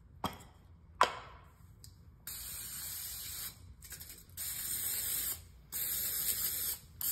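Aerosol can of PAM butter-flavour cooking spray spraying in a series of hissing bursts, each about a second long with short pauses between, greasing metal cookie cutters. Two sharp clicks come just before the spraying starts.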